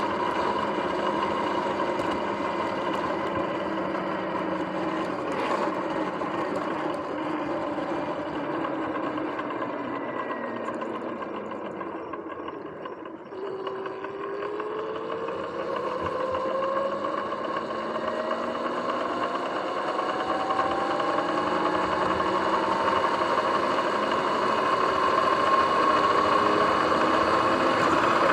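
Sur-Ron electric dirt bike's motor and drivetrain whining while riding. The whine sinks and quietens as the bike slows about halfway through, then climbs steadily in pitch and gets louder as it speeds up again.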